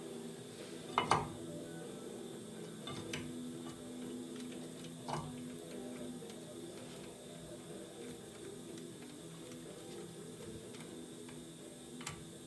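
Scattered light metallic clicks and taps from hand tools and brake parts, a few seconds apart, the loudest a double click about a second in, over a faint steady hum.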